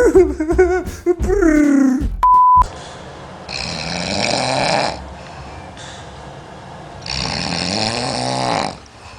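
A person snoring in squeaky, chirping sounds that rise and fall in pitch, like birds. After a short beep, another sleeper snores twice, each snore long and noisy and lasting about a second and a half, about three seconds apart.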